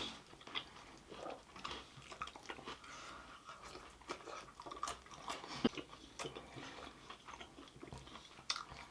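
A person chewing and biting food close to the microphone: scattered soft crunches and wet mouth clicks.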